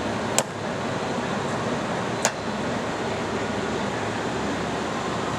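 Leblond Model NI heavy-duty lathe running steadily under power, its spindle turning at about 178 RPM. Two sharp clicks sound over it, about two seconds apart.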